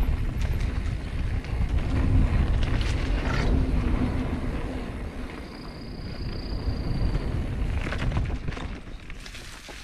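Mountain bike rolling fast down a dirt singletrack, with wind rushing over the microphone and the bike rattling, plus a few sharper knocks over bumps. It eases off near the end.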